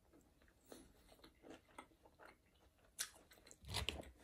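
Close-miked eating: quiet chewing with soft, wet mouth clicks, a sharper click about three seconds in and a louder bite or crunch near the end.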